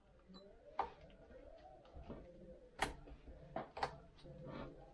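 Several light metallic clicks from a chainsaw chain being pulled and lifted along its guide bar while its tension is checked and adjusted, the loudest about three seconds in.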